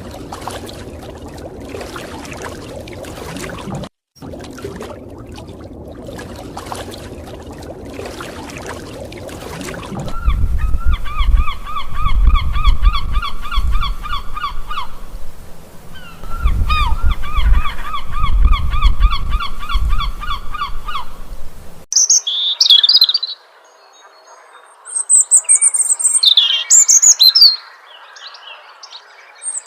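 Bird calls across several short clips: after a stretch of noisy sound, two long runs of rapid, evenly repeated honking calls over a low rumble, then scattered high-pitched chirps and squawks near the end.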